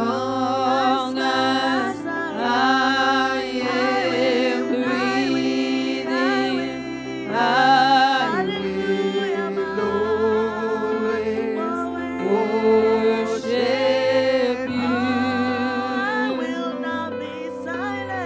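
Slow music: a singing voice holding long notes with vibrato over steady, sustained chords.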